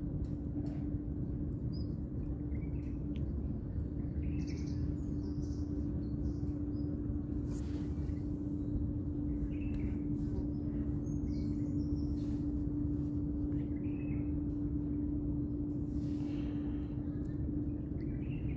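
Outdoor ambience: a steady low rumble with a constant hum underneath, and short bird chirps scattered throughout. A few brief sharp clicks or rustles stand out, notably about eight seconds in and near the end.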